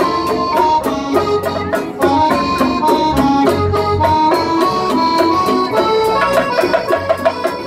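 Rondalla string ensemble playing an instrumental passage: strummed and plucked guitars over a bass line, with sustained keyboard notes in a steady rhythm.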